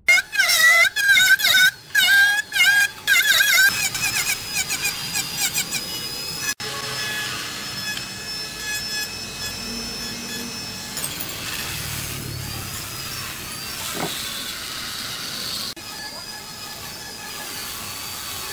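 Handheld electric rotary carving tool grinding wood with a small burr: a high squealing whine that wavers and breaks up as the bit bites during the first few seconds, then a steadier high whine.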